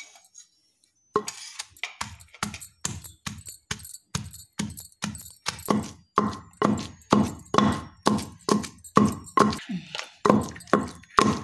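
Wooden pestle pounding green chillies into ground peanuts in a stone mortar, starting about a second in and going on in steady strikes, about two to three a second.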